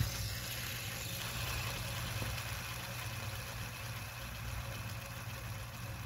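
Plastic fidget-spinner pop-it flicked into a spin at the start, then spinning steadily close to the microphone.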